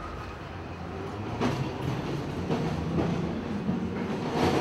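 An old electric tram running on its rails, heard from inside the car: a steady low rumble and hum, with a few clicks from the wheels on the track.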